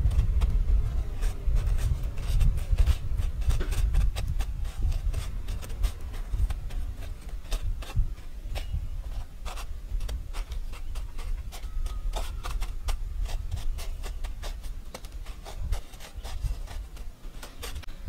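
Fingers pressing and turning chicken strips in a dry crumb coating on a steel plate: a run of short scratchy rubs and light scrapes against the metal, over a steady low rumble.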